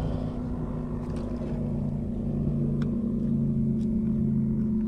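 A boat motor running with a steady hum, its lower tone shifting slightly in pitch about two seconds in, with a few faint clicks.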